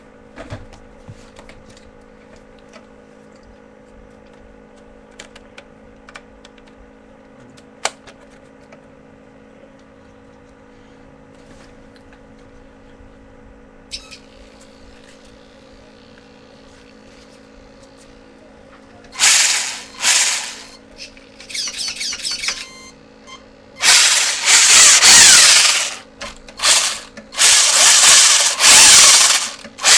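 Radio-controlled car's motor whirring in repeated loud bursts of throttle, starting about two-thirds of the way in, each burst lasting a second or two with a wavering whine inside it. Before that there is only a faint steady hum and a few scattered clicks.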